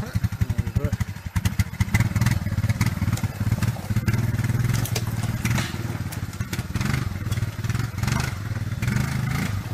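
Utility ATV engine running at low revs with a steady, pulsing chug as the quad crawls through a muddy ditch.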